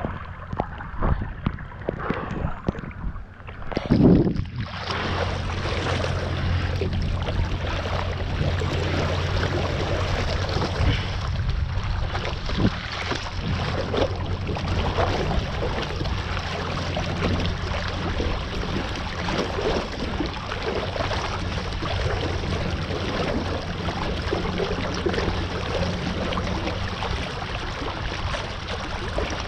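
Wind rushing over a camera microphone and water hissing past a kite foil board on the move. A loud buffet comes about four seconds in, after which the rush holds steady with a low rumble beneath it.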